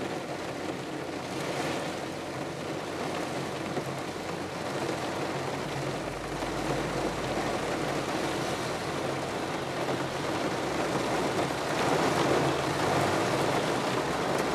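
Heavy rain drumming on a car's roof and windows, getting louder near the end, over a low steady hum.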